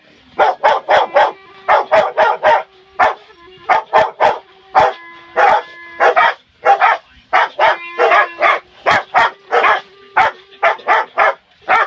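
Rottweiler barking in quick runs of short barks, about three or four a second, along with a clarinet. The clarinet plays held notes underneath, quieter than the barking.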